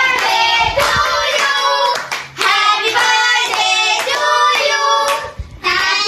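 Children's voices singing, with hand clapping.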